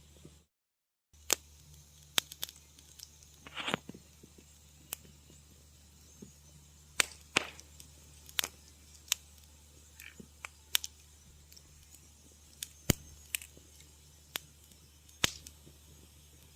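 Wood fire crackling in a fireplace, with sharp irregular pops and snaps over a low steady hum. The sound cuts out completely for under a second near the start.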